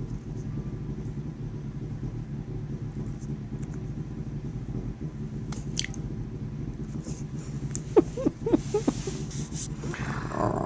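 Tabby cat purring, a steady low rumble. A few short sharp clicks come about eight seconds in, and a brief louder sound near the end.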